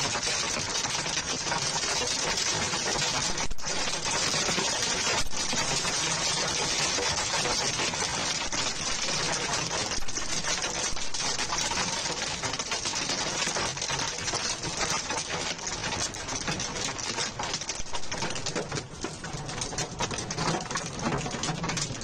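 Hailstones pelting down hard: a dense, rapid, unbroken clatter of countless small impacts, easing slightly near the end.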